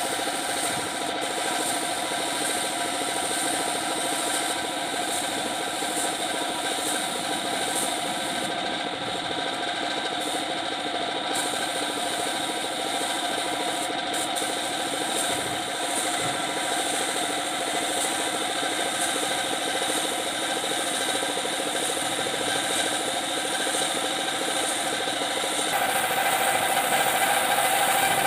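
A machine running steadily, a droning hum of several tones at an even level; it grows a little louder and brighter near the end.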